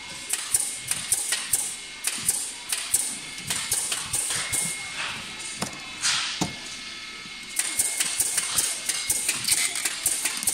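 Corrugated cardboard boxes and wooden hangers being handled during packing: irregular knocks, taps and clacks, a few a second, with cardboard rustling.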